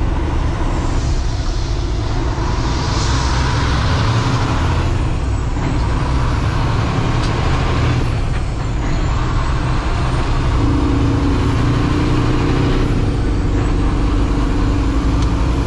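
Cummins X15 diesel engine of a Kenworth T800 dump truck running under way, heard from inside the cab over road and wind noise. The engine note dips briefly a few times as the manual transmission is shifted up through the gears.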